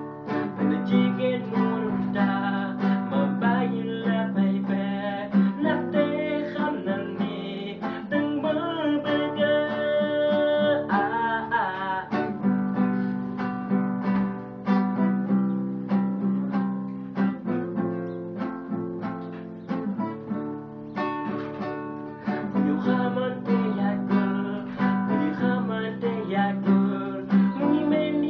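Acoustic guitar strummed and picked in a steady accompaniment, with a man singing over it.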